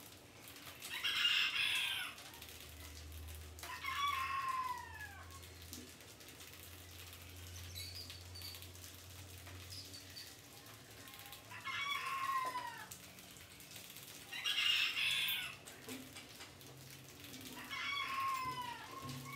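Chickens calling in the background: five separate calls, each about a second long, some dropping in pitch at the end.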